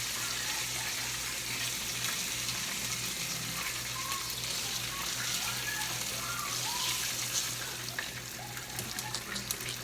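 Food frying in a pan: a steady sizzle, with a few light clicks and knocks near the end.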